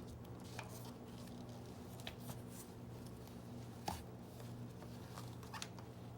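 Steady low hum with scattered light clicks and taps, the sharpest about four seconds in.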